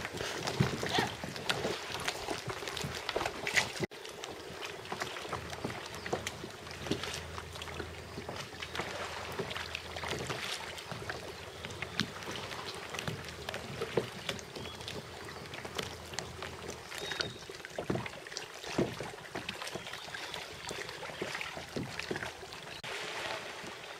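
Kayak paddles dipping and splashing, with water lapping against the plastic hulls of sit-on-top kayaks: many small, irregular splashes and knocks over a steady wash of water.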